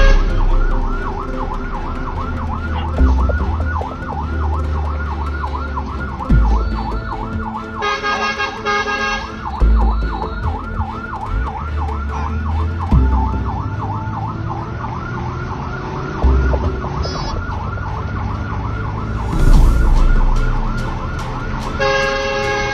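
Fire engine's electronic siren in fast yelp mode, sweeping up and down about three to four times a second, over the low rumble of the moving truck.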